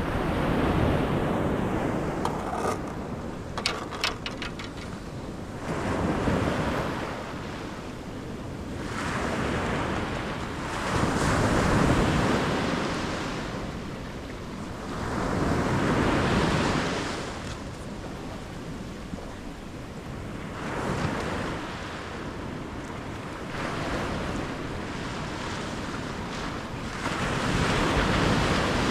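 Ocean surf breaking on a sandy beach, the wash swelling and fading every few seconds as each wave comes in, with wind on the microphone. A short run of small clicks comes about four seconds in.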